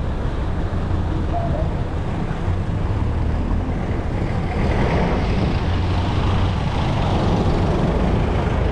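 Street traffic: passing vehicles with a steady low engine rumble, getting a little louder and busier about halfway through.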